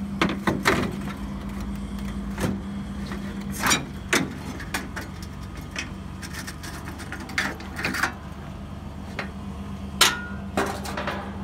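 Scattered sharp clicks and knocks, about ten of them, over a steady low machine hum. The loudest knock comes about ten seconds in.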